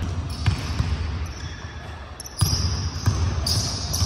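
Basketballs bouncing on a hardwood gym floor: a series of sharp thuds that echo in the big hall, with high squeaks in between.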